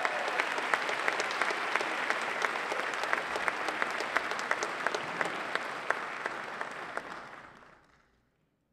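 Audience applauding, a dense patter of many hands clapping that fades out about seven to eight seconds in.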